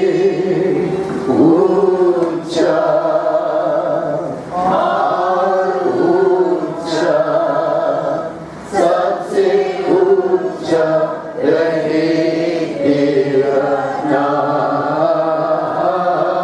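A congregation of many voices singing together in a slow, sustained worship chant, with no clear words and occasional hissing 's' sounds cutting through.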